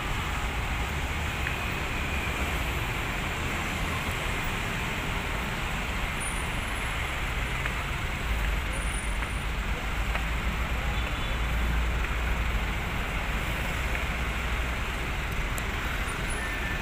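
Busy city road traffic heard from a footbridge above it: a steady rumble and hiss of passing vehicles, swelling a little about eight seconds in and again around ten to thirteen seconds.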